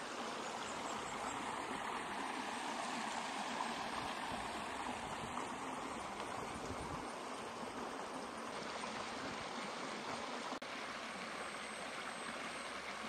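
Stream water running in a thin sheet over smooth rock slabs and splashing into a rock pool: a steady rushing, with a momentary break about ten and a half seconds in.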